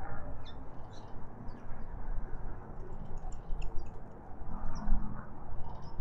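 Small birds giving short, high chirps, scattered irregularly, over a steady low background rumble.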